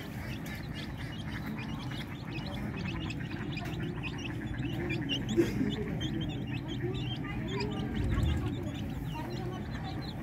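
A brood of native village chicks cheeping constantly in quick, short, falling peeps, with lower clucking from the mother hen as they feed on scattered rice. A single sharp knock about five seconds in.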